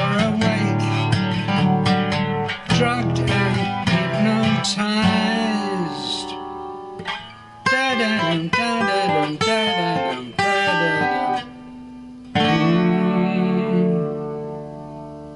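Acoustic guitar playing a song's ending: strummed chords, then a run of single picked notes, then a final chord about twelve seconds in that is left to ring out and fade.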